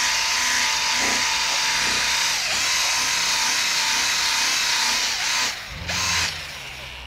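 Cordless polisher whirring at a steady pitch while buffing car paint, with a brief dip in pitch about two and a half seconds in. It stops about five and a half seconds in, runs again for a moment just after, then goes quiet.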